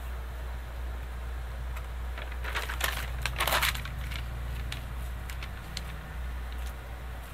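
A thin sheet rustling and crinkling as it is laid on a heat-press platen and smoothed flat by hand, loudest in a burst about two and a half to three and a half seconds in.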